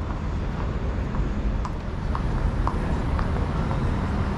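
City street ambience: a steady rumble of traffic, with a few light taps in the middle.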